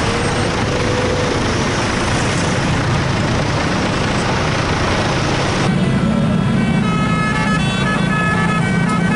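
Loud rushing noise of a bus and traffic, then, after a sudden change about two-thirds of the way in, a bus's telolet basuri musical horn playing a quick tune of short, stepped notes over a low steady engine hum.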